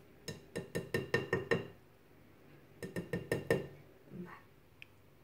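Wire whisk rapped against the rim of a glass mixing bowl to knock thick cake batter off it: two quick runs of ringing glass clinks, about seven and then five strikes.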